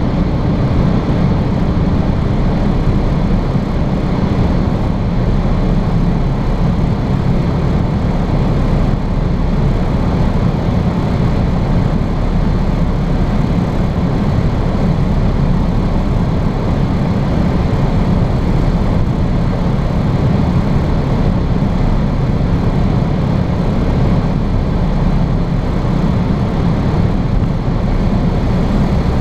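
Inside the cabin of a BMW E46 330Ci with a 3.0-litre straight-six, at steady autobahn speed: a constant low engine drone mixed with road and wind noise, with no gear changes or changes in pitch.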